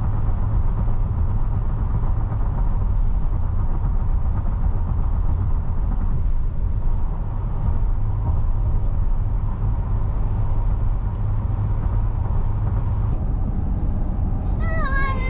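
Steady road and engine noise inside a Toyota's cabin at highway speed, mostly a low rumble of tyres on the road. A voice comes in just at the end.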